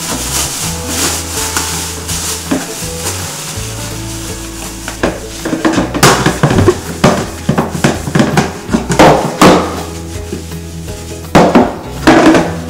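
Plastic bin liner rustling and crinkling as it is fitted into a small plastic bin, followed by rapid rubbing and handling sounds as a cloth wipes the bin's lid, and a few sharp plastic knocks near the end as the hinged lid is moved. Soft background music runs underneath.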